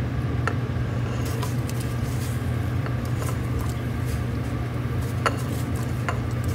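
A steady low kitchen rumble with light scattered taps and clicks as chopped onions are scraped off a plate and dropped into a stainless-steel pot of water. One sharper click comes about five seconds in.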